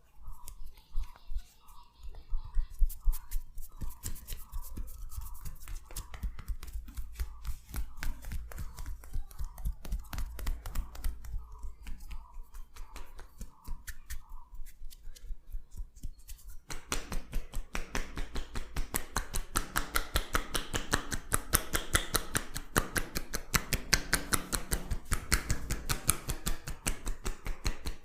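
Rapid hand strikes of a champi head massage: a fast, continuous run of slaps, taps and crackles on the head and oiled hair, several a second, growing louder and denser about two-thirds of the way through.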